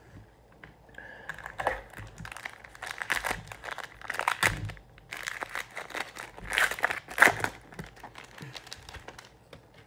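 Crinkling of a foil trading-card pack wrapper as a pack is pulled from the box and handled, in irregular crackly bursts that are loudest a little past halfway through.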